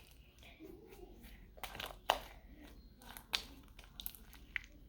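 Slime being squeezed and stretched by hand, giving scattered faint crackles and about five sharp pops.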